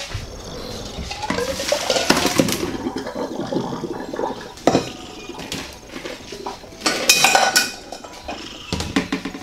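Cooking pot handled and clanking as the egg water is poured off, with a rush of pouring water about a second in and sharp metal knocks later on.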